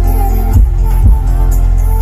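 Loud electronic dance music played through a large sound system with six subwoofers, the bass very heavy, with a kick beat about twice a second.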